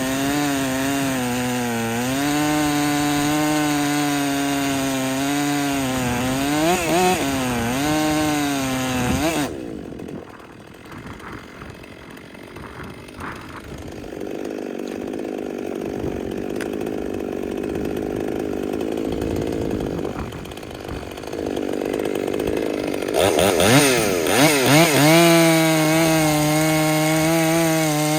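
Husqvarna 257 two-stroke chainsaw running at full throttle in a cut, its pitch wavering under load. About ten seconds in it drops to a low idle, then near the end it is revved back up to full throttle.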